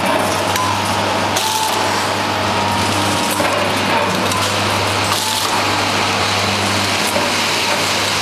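Vertical form-fill-seal bagging machine running in production: a steady mechanical hum and hiss with a few faint clicks as it forms, seals and cuts film bags.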